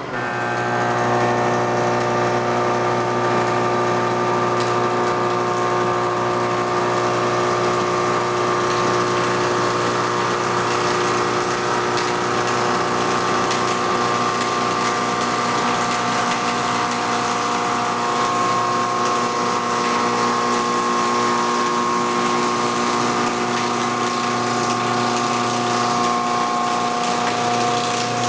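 KBM-200 log-rounding machine running: a steady motor whine of several held tones over an even hiss of noise.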